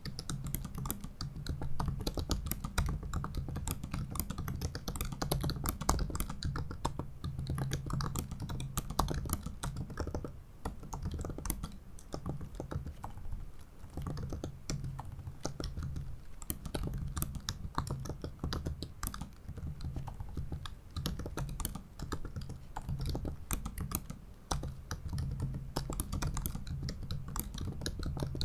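Continuous typing on a 2017 MacBook Pro 15-inch's ultra-thin butterfly keyboard: a fast, steady stream of shallow key clicks, with short breaks about ten seconds in and again about three quarters of the way through.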